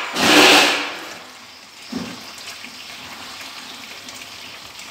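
Fish braise bubbling at a boil in an aluminium pot, stirred with wooden chopsticks, with a louder rushing hiss in the first second, then a steady low bubbling; a couple of sharp clicks of chopsticks against the pot near the end.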